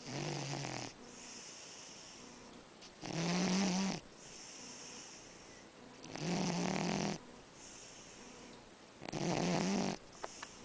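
Sleeping dog snoring: four loud snores about three seconds apart, each lasting about a second, with quieter breaths between them.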